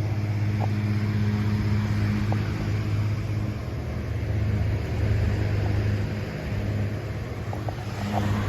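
Antique Signal 16-inch table fan running on high with its oscillator on: a steady motor hum under the even rush of air from its heavy blades.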